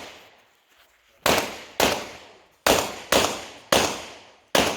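Six pistol shots fired in a quick string, mostly in pairs about half a second apart, each with a short echoing tail.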